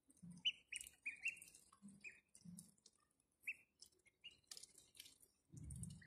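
Ducklings peeping in short chirps, a quick run of them in the first two seconds and another about three and a half seconds in, with small clicks and dabbling from their bills in a shallow tub of water.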